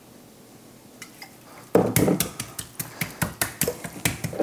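Hands working oil and Worcestershire sauce into a raw veal joint on a board: irregular taps, knocks and handling noises starting about two seconds in, after a quiet start.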